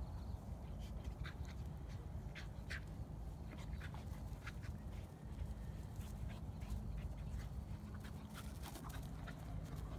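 Bull terrier rolling and rubbing on the grass, with irregular short, sharp sounds from the dog over a steady low rumble.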